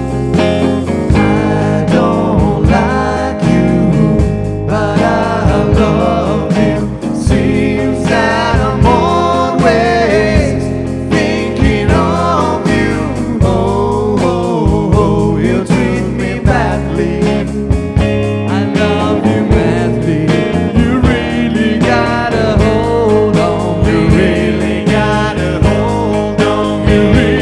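Rock band playing live, with guitars over bass and drums and a steady beat.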